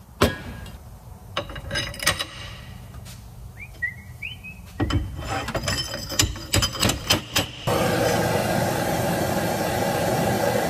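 A new rear wheel bearing on a Suzuki Samurai axle being driven home with a length of pipe, metal on metal: a sharp bang near the start, a few knocks around two seconds in, then a quick run of impacts from about five to seven and a half seconds. A steady hiss follows.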